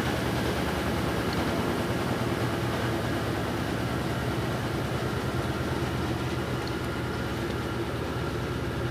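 LT13B top-loading washing machine running its wash cycle: a steady motor hum with a fast, even churning pulse underneath.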